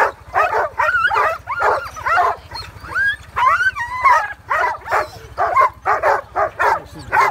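A team of harnessed sled dogs barking and yipping over one another, about two barks a second, with a few longer rising whines about halfway through: hitched dogs eager to run.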